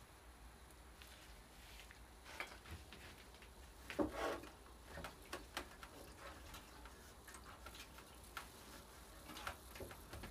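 Faint handling sounds while a mirror glass is cleaned with a rag and lacquer thinner: scattered light clicks and taps, with a louder knock and a brief rub about four seconds in.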